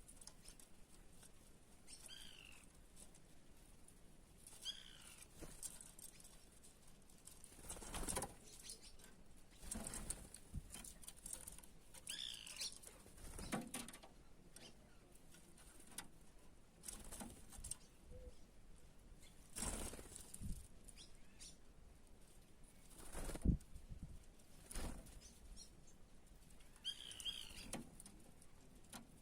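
Small birds at a water bowl: wings flapping in short flurries as they land and take off, now and then a short chirp.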